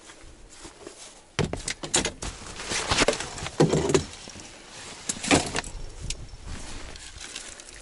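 Fishing gear being handled in a car's open hatchback boot: a series of rattles, clinks and knocks from rods and tackle, with a heavier thud near the middle.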